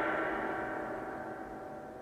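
Ringing tail of a struck gong-like metal tone with many overtones, fading away steadily.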